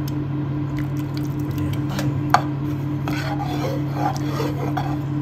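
A plastic spoon stirring and scraping through simmering beef pares in a nonstick pot as the cornstarch-thickened sauce cooks, with light scattered clicks and one sharp knock about two and a half seconds in. A steady low hum runs underneath.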